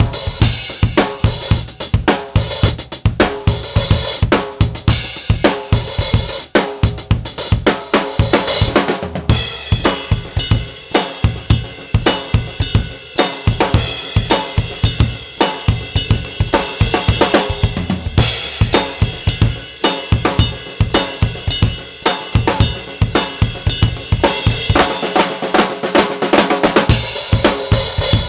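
A drum kit is played in a steady, busy groove that features a custom 14" x 5.5" rock maple snare drum, undampened, with a Remo Controlled Sound batter head. Bass drum and cymbals play with it, and the bass drum drops out for a couple of seconds near the end.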